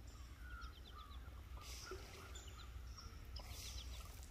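Faint small-bird calls over low background noise: a quick run of high chirps about half a second in and another near the end, with a few lower whistled notes between them.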